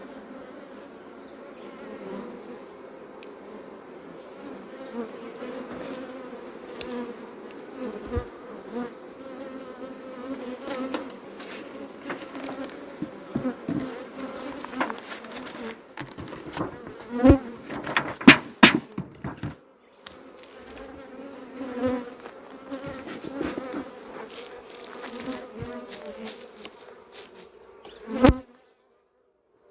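Honey bees buzzing around hive boxes in a steady hum. A cluster of sharp knocks comes a little past the middle, and one more near the end.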